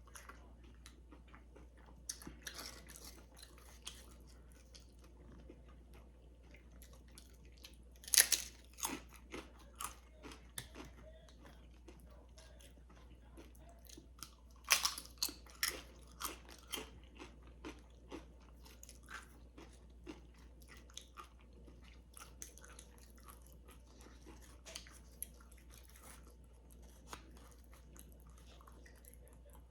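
Close-up eating of crunchy Tostitos Hint of Lime tortilla chips with dip: two loud crunching bites, about a quarter of the way in and again about halfway, each followed by a run of smaller crunches as the chip is chewed, with quieter chewing between.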